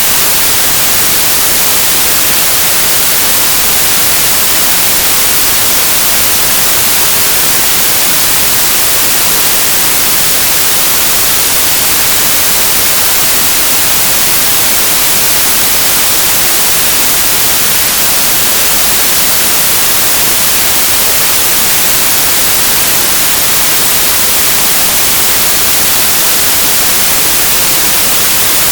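Loud, steady static hiss like white noise, strongest in the highs, with no other sound.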